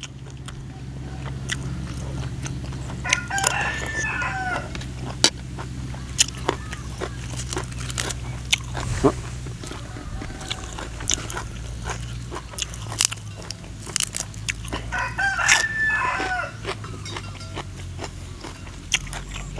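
A rooster crows twice, about three seconds in and again about fifteen seconds in, over the steady low drone of a rice harvester's engine. Short clicks and crunches of eating come in between.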